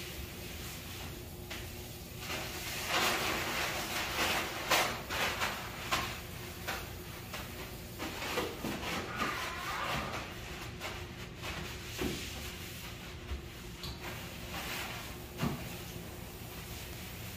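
Paper towel rubbing and wiping over a washroom sink and mirror in quick strokes, busiest in the first half, with scattered rustles and knocks later, over a steady low hum.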